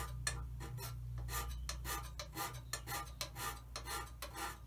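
Hand scraper working the cast-iron bed way of a Holbrook lathe: short, rasping scrape strokes repeating about two to three times a second, taking only the surface off the worn way to bring it back into condition. A steady low hum runs underneath and fades near the end.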